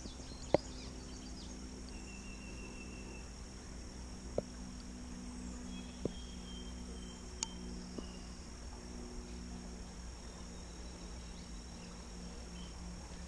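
Steady high-pitched insect drone of outdoor ambience, with a few soft clicks and a couple of short faint chirps.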